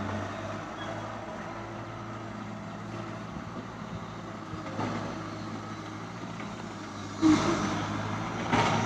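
Excavator's diesel engine running steadily while it digs pond soil, with two short, louder bursts of noise near the end.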